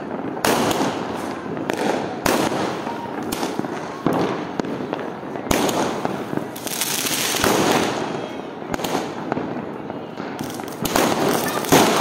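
Many fireworks and firecrackers going off at once: sharp bangs at irregular intervals over a continuous crackling of bursting aerial fireworks.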